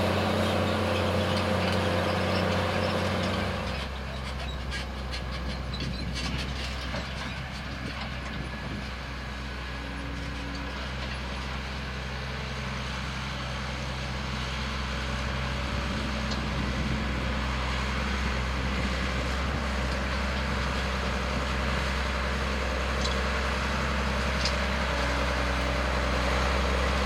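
Case IH Steiger 500 tractor's diesel engine running steadily under load while pulling a Tiger-Mate cultivator through the soil. It drops in level a few seconds in, then slowly grows louder as the tractor comes closer, with a few clicks early on.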